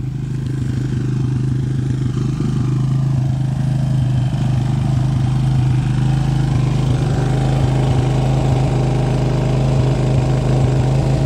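1985 Suzuki LT230S Quadsport's single-cylinder four-stroke engine idling steadily at a raised, a little loud idle, growing louder over the first two seconds as the microphone comes up to it.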